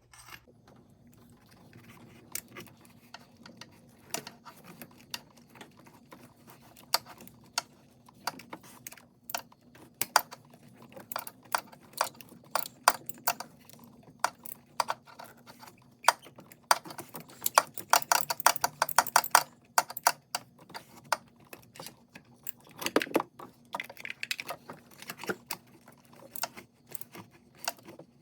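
Ratchet wrench clicking in short bursts, mixed with clinks of the socket and extension, as new spark plugs are snugged down by feel without a torque wrench. The fastest, densest run of ratchet clicks comes a little past the middle.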